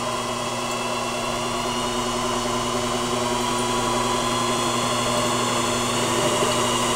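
Brushed washing-machine-style motor running fast and belt-driving a three-phase induction motor used as a generator: a steady whine with several tones that grows slightly louder. The small motor is labouring under the load of the generator charging a 12 V battery.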